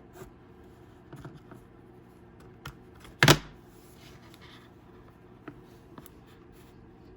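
Small plastic pry tool clicking and scraping against the edge of an iPhone 6 Plus as the screen is pried open, with scattered light clicks and one sharp, loud click about three seconds in.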